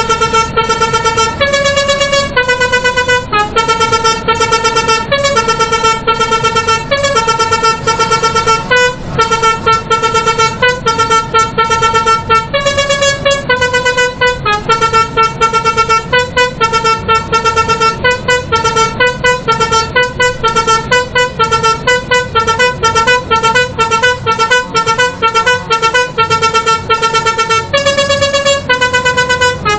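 Telolet musical air horn on a lorry playing a tune: a continuous string of loud horn notes jumping between pitches, with quicker alternating notes for several seconds in the second half.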